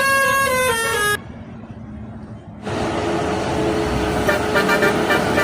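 Bus telolet horn playing a melody of clear tones that step up and down in pitch, cut off abruptly about a second in. After a quieter stretch, busy traffic noise comes in with a faint steady horn tone, and more horn notes sound near the end.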